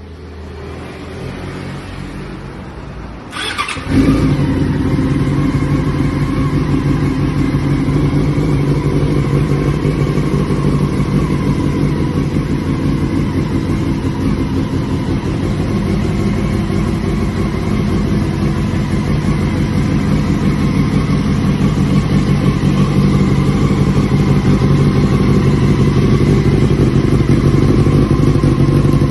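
2005 Yamaha R6 inline-four motorcycle engine cold-started: the starter cranks briefly and the engine catches about four seconds in. It then idles steadily through a side-mounted slip-on silencer.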